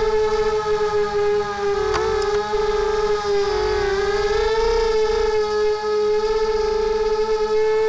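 SunnySky brushless motors and propellers of a mini quadcopter whining in flight, heard from the onboard camera, the pitch dipping and rising with throttle changes. A brief click about two seconds in.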